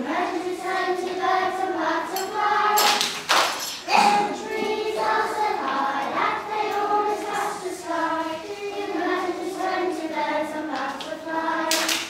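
A group of children singing a song together, holding long notes, with a short loud burst of noise about three seconds in.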